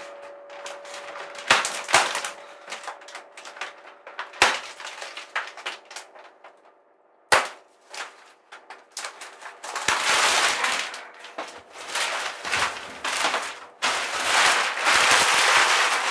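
Plastic wrapping on a new block of foam being slit with a knife and pulled off: a few sharp snaps in the first half, then long stretches of loud crackling and rustling as the plastic is torn away and crumpled.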